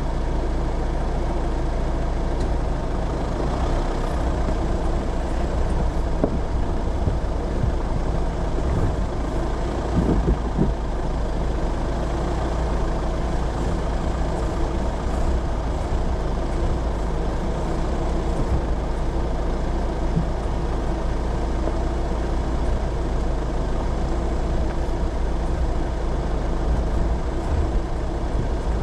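Off-road vehicle driving on a rough track: steady engine and rolling rumble, with a few knocks and jolts, the loudest about ten seconds in.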